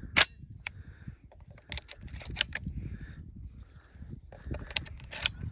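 Hunting shotguns being handled and readied: a scattering of sharp clicks and knocks, the loudest just after the start, over a low handling rumble.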